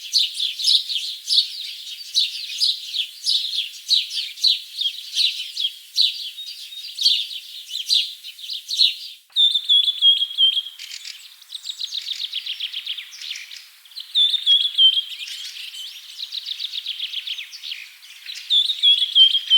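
Small birds chirping in quick, high, overlapping chirps. A little under halfway through it cuts abruptly to a second bird recording of rapid trills and short whistled phrases.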